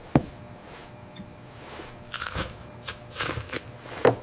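Crunching bites into a crisp apple: one sharp crunch at the start, then a series of chewing crunches from about two seconds in.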